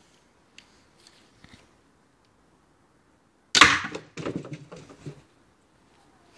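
A 120-pound draw weight crossbow firing a steel-tipped aluminium bolt: one sharp, loud crack at release about halfway through, followed by about a second of smaller knocks and rattles. A few faint clicks of handling come before the shot.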